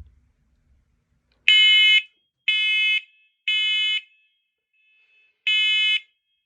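Hardwired combination smoke and carbon monoxide alarm sounding its test with loud, high-pitched beeps in the three-beep fire pattern: three half-second beeps a second apart, a pause, then the next group begins. The alarm is being tested with its test button.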